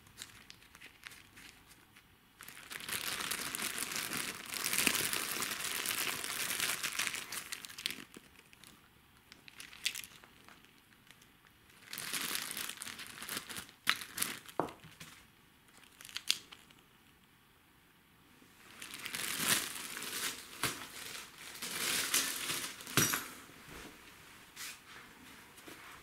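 Clear plastic bag crinkling and rustling in three spells as small plastic parts are handled and unwrapped from it, with a few sharp clicks between.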